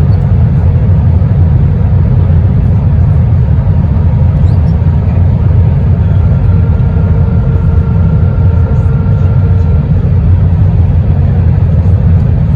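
Steady loud rumble inside the cabin of an Airbus A321 with IAE V2500 engines, heard from a window seat: engine and airflow noise with no break, and a faint steady whine in the middle for a few seconds.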